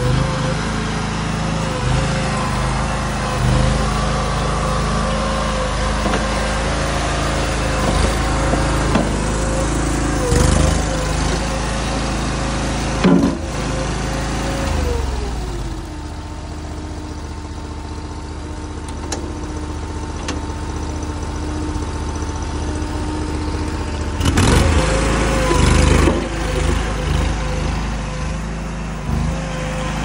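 Small engine of a stand-on mini tracked skid steer running at high revs, with sharp metal knocks and clanks from the machine and its bucket. About halfway through the engine slows to idle, then revs back up a few seconds before the end, with more clanking as it does.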